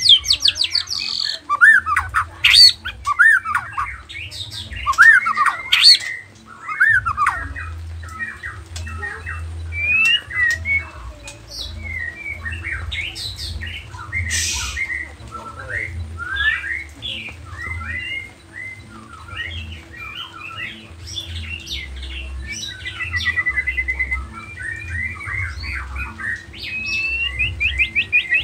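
White-rumped shama (Nias murai batu) singing without pause: a fast, varied stream of whistled glides, rapid trills and chattering notes, its song filled with phrases mimicked from other birds.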